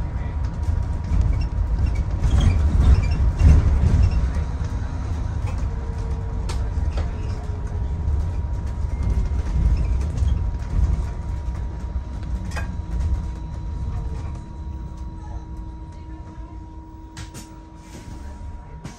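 Inside a moving bus: the low rumble of the bus running along the road, louder a few seconds in and easing off over the last few seconds, with a thin steady tone throughout and a few clicks near the end.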